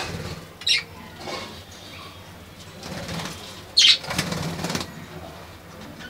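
Pet budgerigars in a cage: wings flapping as a second bird flies onto the corn cob, with two short, sharp high chirps, one about a second in and one about four seconds in.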